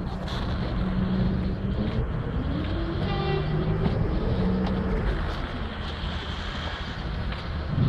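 A vehicle engine running steadily with a low hum. Its pitch rises and falls through the middle, with a brief higher whine about three seconds in.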